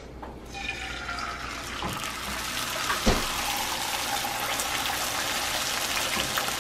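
Beaten egg poured into a hot frying pan and sizzling, the sizzle building up over the first second or two and then holding steady. A single knock about three seconds in.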